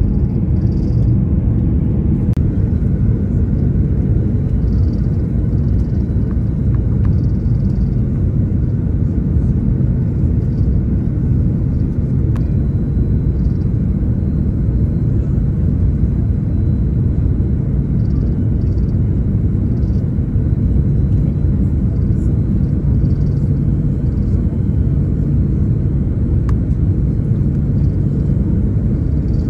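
Steady low rumble of an Airbus A330 airliner heard from inside the cabin, unchanging throughout.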